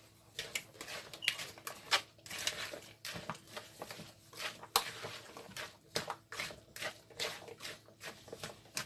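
Kitchen handling: a run of light, irregular clicks, taps and knocks of utensils and dishes being moved about while a salad is prepared.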